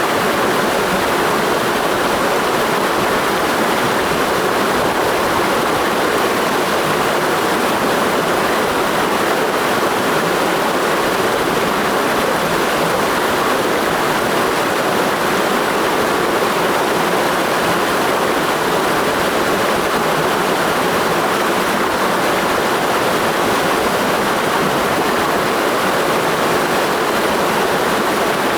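Mountain stream rushing steadily over rocks, an even rushing that does not change.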